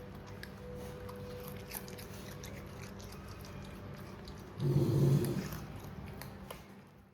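Raccoon chewing and crunching food with many small crisp clicks. About four and a half seconds in, a louder low sound swells for about a second and then fades.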